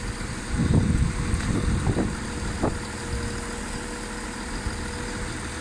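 ScotRail Class 170 Turbostar diesel multiple unit standing at the platform with its underfloor diesel engines idling: a steady hum with one constant mid-pitched tone. A low rumble swells briefly in the first couple of seconds.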